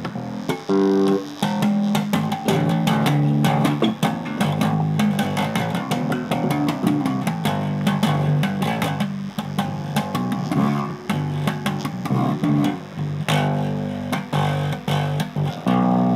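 Electric bass guitar played through a Joyo MA-10B micro bass amplifier: a steady run of plucked low notes with sharp string attacks.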